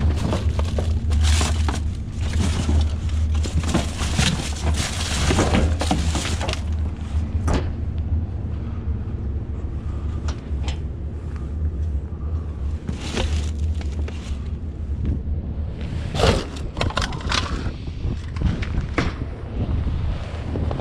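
Junk being rummaged through and handled: repeated knocks, clatters and scraping, heaviest in the first several seconds and again near the end, over a steady low rumble.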